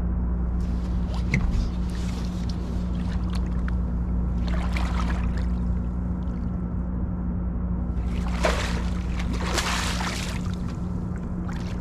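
Water splashing as a flathead catfish is lowered over the side of a boat and released into the river, in two bursts about four and eight seconds in. A steady low hum runs underneath.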